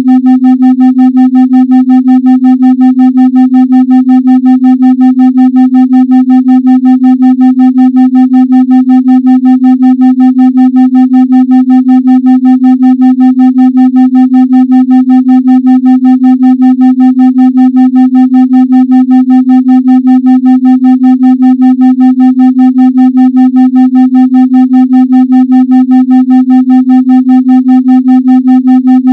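Synthesized 256 Hz meditation tone held steadily, with fainter overtones above it. Its loudness pulses about three and a half times a second: a 3.5 Hz pulsed tone meant for brainwave entrainment.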